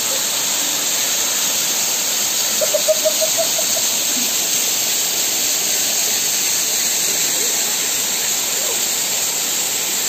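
Steady rushing of water from a waterfall cascading over rock and a shallow rocky stream, an even hiss-like noise. About three seconds in, a brief run of quick, high, squeaky notes cuts through.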